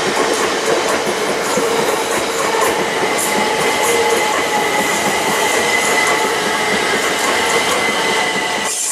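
Class 379 Stansted Express electric multiple unit running past the platform: a steady, loud rumble of wheels on rail with a high-pitched squeal that joins about two and a half seconds in.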